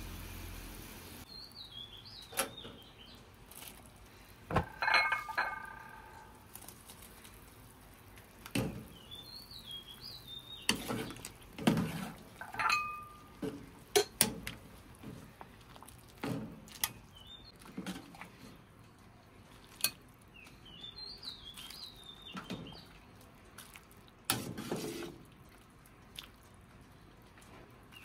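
A metal ladle clinks and knocks against the soup pot and bowl now and then as the soup is dished out, and a couple of the clinks ring briefly. Small birds chirp faintly a few times in the background.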